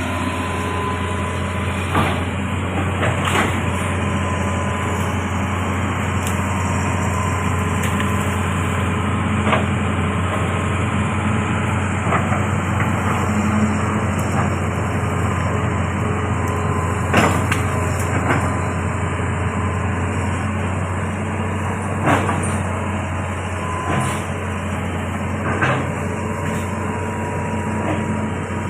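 Amphibious excavator's diesel engine running steadily with a low drone, with sharp knocks every few seconds.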